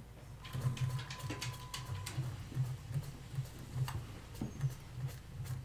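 Small sharp metal clicks of tweezers and tiny parts being handled on a Seiko 6139 chronograph watch movement during reassembly of its calendar side, over a soft low pulsing about four times a second.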